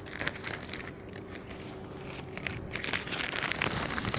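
Plastic courier mailer bag crinkling as it is handled and opened, in irregular crackles that grow denser in the second half.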